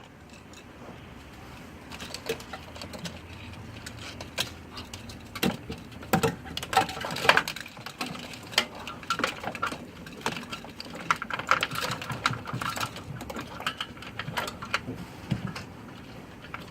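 Irregular small clicks, taps and knocks of parts and tools being handled during hand work on an engine, coming thick and uneven from about two seconds in.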